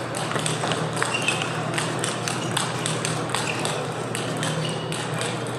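Table tennis balls clicking off bats and tables from several practice tables at once, irregular pocks several a second over a steady low hum.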